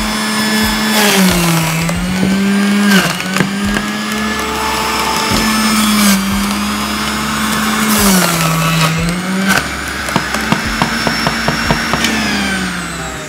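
Electric juicer motor whining steadily while a radish is pushed down the chute into its cutting blade, the pitch sagging several times as the motor takes the load. About ten seconds in there is a run of quick clicks, and near the end the motor slows.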